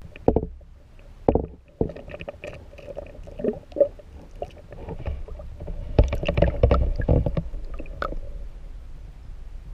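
Water sloshing and splashing heard through a submerged camera, muffled and rumbling, with irregular knocks; the splashing is busiest about six to seven seconds in.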